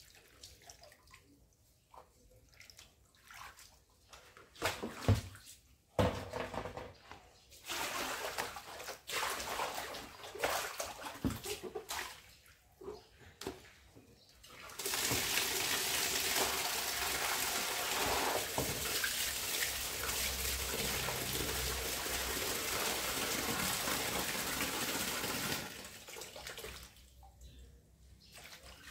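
Hands sloshing and rinsing greens in a plastic basin of water, with scattered splashes and knocks. About halfway through a wall tap is turned on and runs in a steady rush for about ten seconds before it is shut off.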